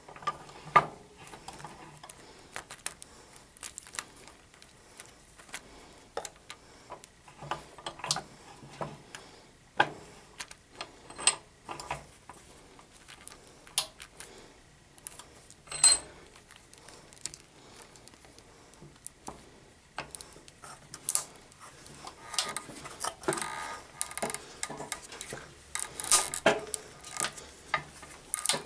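Irregular small clicks, taps and knocks of hard plastic action figures being handled and fitted into the jaws of a metal vise, growing busier near the end.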